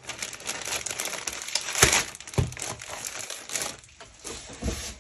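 Packaging crinkling as products are handled, with three dull knocks of things being set down on a desk.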